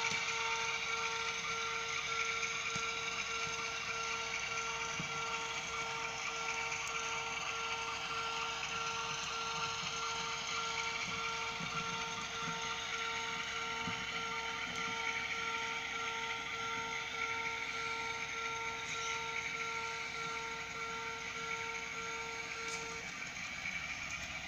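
A model level crossing's electronic warning bell rings steadily and cuts off shortly before the end. Under it, a model train's motor and wheels whir and rattle along the track.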